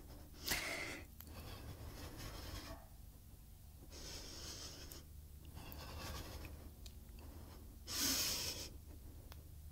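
A woman's audible breathing during a slow strength-yoga movement: several soft inhales and exhales in rhythm with the motion, the loudest exhale about eight seconds in.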